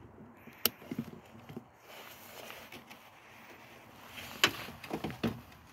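A few sharp clicks and light knocks over faint background noise, the loudest about four and a half seconds in.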